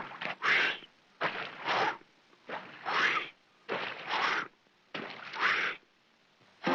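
Cartoon sound effect: five rhythmic hissing, breathy bursts about one a second, each in two parts, with the music stopped.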